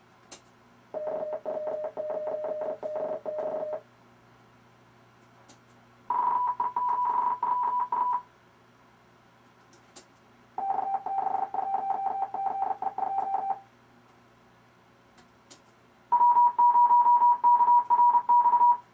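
RufzXP Morse code trainer sending four amateur radio callsigns in a row, each a burst of keyed beeps two to three seconds long at its own pitch: the first low, the second highest. A few faint clicks fall in the gaps between callsigns.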